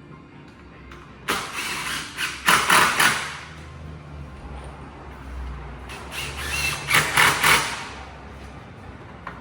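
Two bursts of power-tool noise working wood, each about two seconds long, the first starting about a second in and the second about six seconds in.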